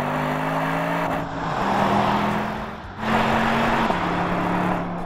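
Porsche Panamera 4 E-Hybrid's 2.9-litre twin-turbo V6 pulling under acceleration, with tyre and wind noise. The engine note climbs, then steps down in pitch twice, as at upshifts of the gearbox.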